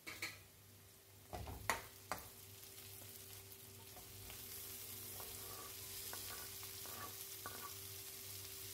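Chopped vegetables frying in a metal kadai with a faint, steady sizzle as chopped spring onions are dropped in. A few sharp clicks come in the first two seconds.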